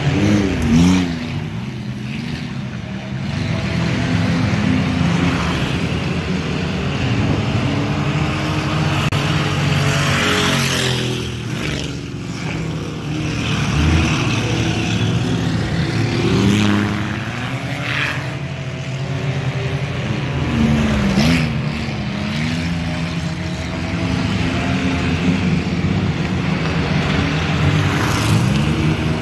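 Several four-cylinder dirt-track enduro cars racing around the oval, engines revving up and down again and again as the cars go into and out of the turns and pass by.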